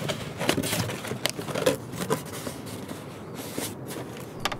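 A cardboard box being folded shut and handled on a wooden table: a few scattered scrapes and light knocks over a low hiss.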